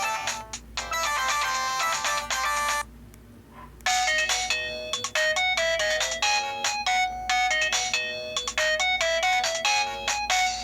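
Ringtone melodies played on a Pantech C120 mobile phone. One tune stops a little under three seconds in, and after about a second's pause the next ringtone starts, a quick run of bright electronic notes. The tones sound somewhat distorted.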